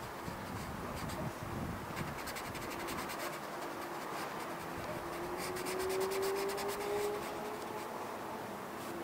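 Fingertips rubbing soft pastel into paper, blending in two spells of quick scratchy strokes, about two seconds in and again past the middle. A faint steady hum in the background rises slightly in pitch around the middle.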